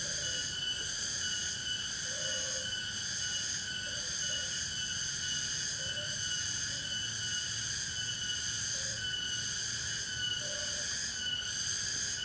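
Dense night chorus of forest insects, a steady high shrill pulsing in an even rhythm, with a few short low calls scattered through it.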